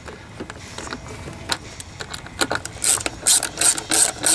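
Socket ratchet clicking in short back-and-forth strokes, about two to three a second from about three seconds in, tightening the mounting bolts of a lawnmower carburetor. Before that, a few faint taps and clicks of the tool being handled.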